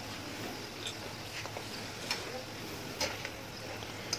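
Wire skimmer and spatula clicking against a wok while fried potato chips are scooped out of the oil: a handful of sharp, irregular metal clicks over a faint steady low hum.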